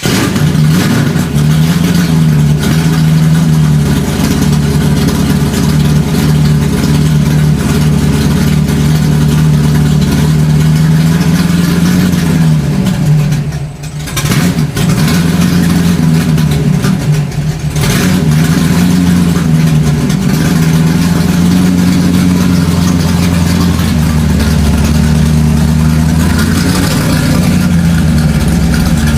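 A motor running loudly and steadily, its pitch wavering slightly up and down, with a brief drop in level twice around the middle.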